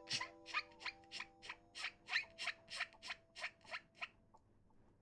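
A quick run of short, hissing mouth noises, about three a second, made as a silly vocal sound effect; it stops about four seconds in. Soft held chords of background music sound under it.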